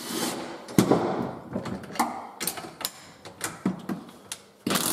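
Irregular metal knocks and clinks of hand tools working on the rusty tow hitch of an ATV log trailer to get it off. The loudest knock is about a second in, and a loud steady noise starts near the end.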